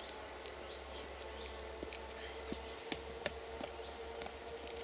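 Electric multiple unit approaching from a distance, heard as a faint steady hum that grows slightly stronger, with high chirping calls over it and three sharp clicks about two and a half to three and a half seconds in.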